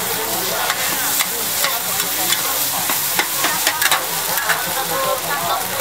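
Egg mixture sizzling steadily on a large flat wok, while two metal spatulas scrape and clack against the pan many times as they toss and chop it.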